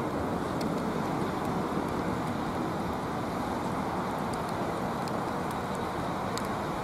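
Steady rumble of a diesel multiple unit standing at the platform with its engines running.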